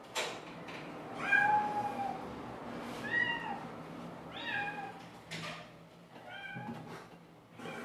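A domestic cat meowing four times, each meow rising then falling in pitch, the last one fainter.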